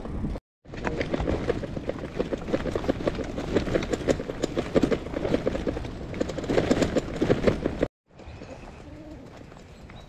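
Bicycle riding over a rough, wet dirt and gravel track: a dense, rapid clatter of tyres crunching and the loaded bike and bags rattling, which stops suddenly near the end. A quieter stretch follows, with faint bird calls.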